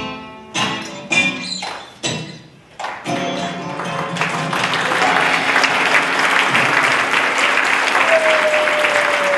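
A guitar strummed in a few last chords, then audience applause that starts about three seconds in and builds to steady clapping. Near the end a single long falling tone sounds over the applause.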